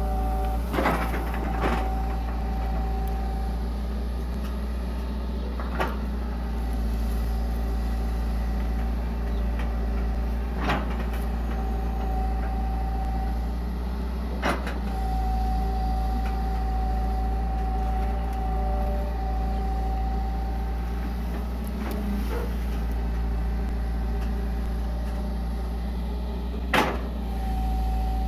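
Hitachi EX120 excavator's diesel engine running steadily under work, with a steady high whine over it. A handful of sharp knocks, about six, come as the long arm and bucket dig.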